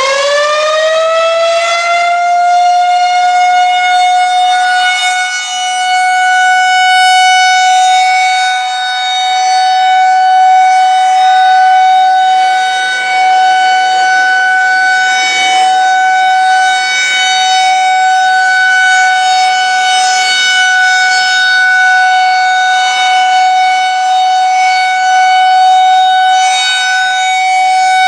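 Federal Signal 2001-130 outdoor warning siren sounding for a test. It winds up to full pitch in the first couple of seconds, then holds a steady high tone that swells and fades slowly as the rotating horn turns.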